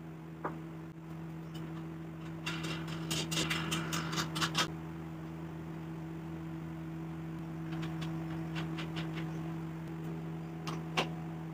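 Light clicks and scrapes of wooden parts being handled and a turned wooden handle being threaded onto a steel rod, busiest a couple of seconds in and with one sharp click near the end, over a steady low hum.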